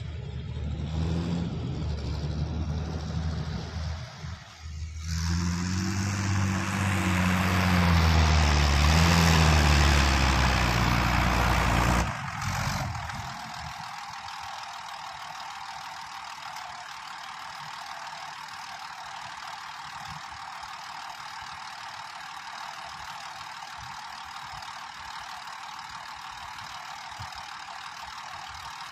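Diesel farm tractor pulling a loaded self-loading forage wagon onto a grass silage heap: the engine works under load and revs up and down. About twelve seconds in the sound drops suddenly, and the tractor then idles quietly and steadily with a faint knock.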